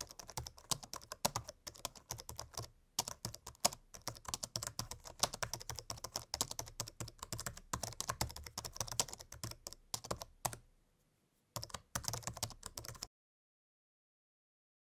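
Typing on a MacBook laptop keyboard: a rapid, steady run of key clicks, with a short pause and a last brief burst of keystrokes near the end.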